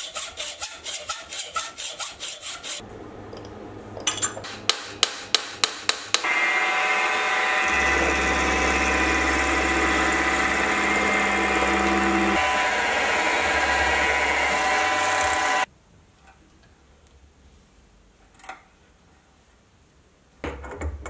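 Hacksaw cutting a metal bar in a bench vise, about three strokes a second, followed by a run of sharp knocks. Then a Sieg X2.7L mini milling machine runs steadily for about nine seconds while an end mill cuts a slot in a metal block, and stops suddenly.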